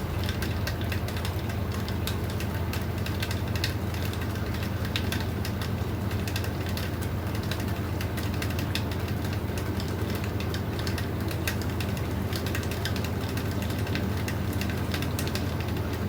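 LG 8.0 kg washing machine running, with a steady low hum and frequent irregular clicks and rattles.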